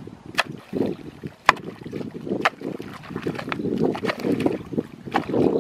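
Hand hoe chopping into wet, grassy mud: a sharp strike every second or so over a low rough rumble of churned mud and water.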